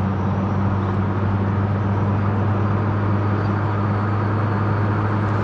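Vehicle driving up a steep, winding mountain highway: steady engine and tyre-on-road noise with a constant low hum, unchanging throughout.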